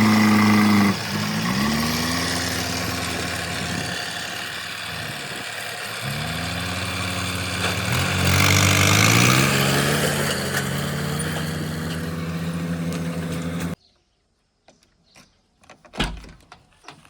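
Heavy diesel engine of earth-moving machinery running and revving, its pitch rising and settling several times. It cuts off abruptly about 14 s in. Near quiet follows, with a few faint clicks and a single thump near 16 s.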